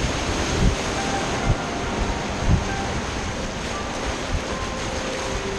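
Steady rush of whitewater on the river, with a few brief low thumps on the microphone in the first few seconds.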